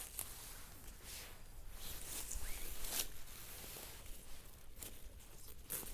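Rustling of leaves and plant stems with several short, irregularly spaced rasping sounds: wild garlic plants being handled as their flower stalks are picked.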